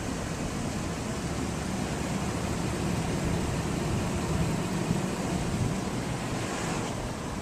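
Steady background noise: an even hiss with a fluttering low rumble.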